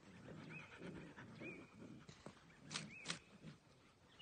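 Faint puppy noises close by: soft grunting and snuffling, with three short high squeaks. Two sharp clicks come close together a little before the midpoint.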